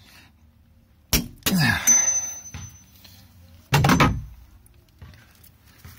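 A large nut on a Velvet Drive 71C marine transmission being tightened hard with a long socket wrench: a sharp metallic click about a second in with a brief high ring after it, and two strained grunts of effort, the second about four seconds in.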